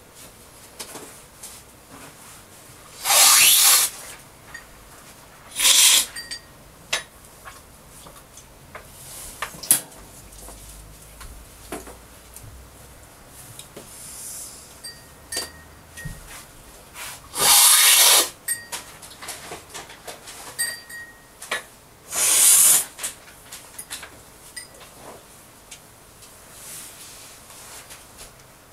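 Specialty coffee cupping: four loud, sharp slurps of coffee, each under a second, with scattered faint clicks between them.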